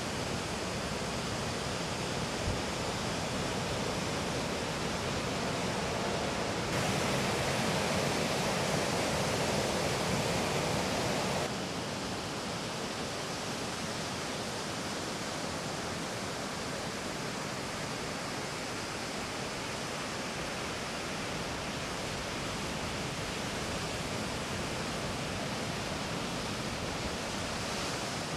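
Steady rushing noise of ocean surf breaking. It gets louder suddenly about seven seconds in and drops back just as suddenly about four seconds later.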